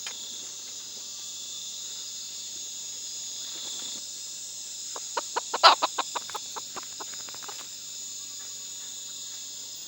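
Chicken clucking: a quick run of about a dozen short clucks starting about five seconds in, over a steady, high-pitched insect chorus.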